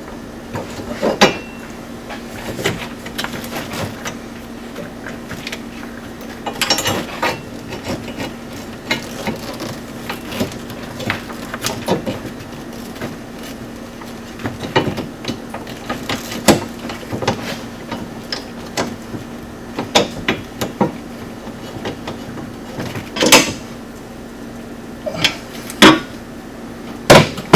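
Scattered clicks, knocks and clatter of hand tools and metal parts as the two bolts of an aftermarket shifter bracket are fitted and tightened, over a steady low hum.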